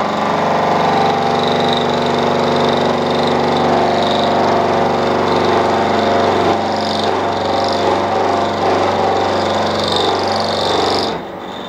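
Milling machine running, its pointed cutter trimming the ridge off the welded teeth of a 1952 Bentley flywheel ring gear: a steady motor hum with a cutting whine over it, stopping suddenly near the end.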